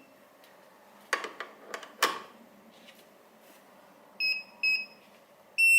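A few sharp clicks and knocks, then a Retekess TD164 restaurant guest pager alerting with short high-pitched beeps: two single beeps about four seconds in, then fast repeated beeping starting near the end as the pager is called.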